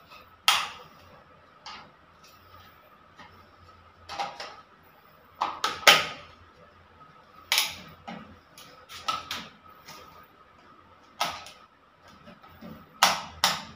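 Irregular sharp plastic clicks and knocks, about a dozen, as a two-gang wall switch and its cover plate are handled and fitted onto the box. A faint steady high hum runs underneath.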